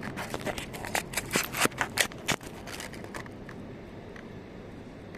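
Bicycle chain being handled during fitting: a quick run of sharp metallic clicks and clinks as the links move and knock, stopping about two and a half seconds in.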